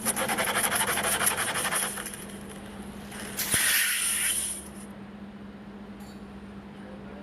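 Two bursts of compressed air at a tyre puncture repair: a rapidly fluttering blast lasting about two seconds, then a shorter hiss about three and a half seconds in. A steady low hum runs under both.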